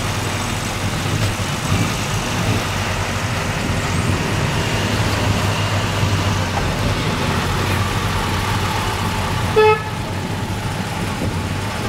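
Old cars' engines running as a Ford Escort and then a Volkswagen Polo drive slowly past, one after the other. About nine and a half seconds in, a car horn gives one short toot.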